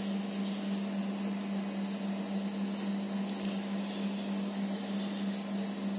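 A steady machine hum with a fainter high whine above it, unchanging throughout.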